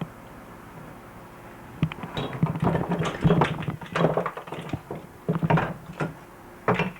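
A run of knocks, taps and rubbing from objects being handled close to the microphone, starting about two seconds in, with one last knock near the end.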